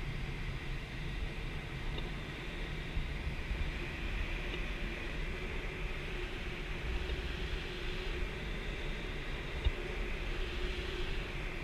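Steady rush of air over the canopy of an unpowered ASK 13 training glider in flight, heard inside the cockpit, with one small knock about ten seconds in.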